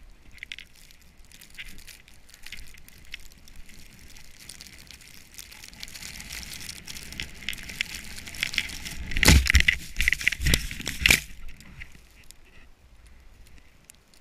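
A snowboard sliding and scraping over snow: a hiss that builds toward the middle, with a cluster of hard thumps and scrapes about nine to eleven seconds in, then eases off.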